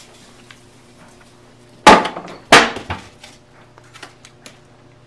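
Kitchenware clattering: two loud bangs about two-thirds of a second apart, followed by a few lighter knocks and clicks.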